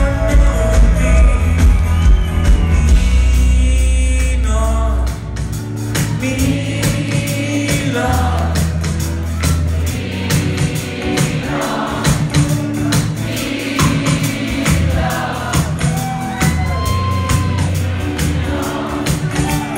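Live rock band playing with a lead vocalist singing over bass and drums. The heavy bass eases off about five seconds in, leaving the voice over a lighter beat.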